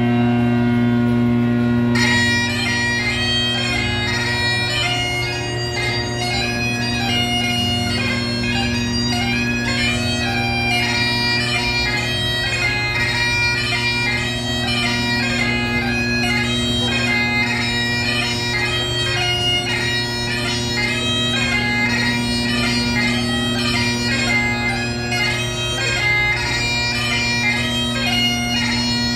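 Highland bagpipe playing a dance tune: the steady drones sound alone at first, and the chanter melody comes in about two seconds in and carries on over them.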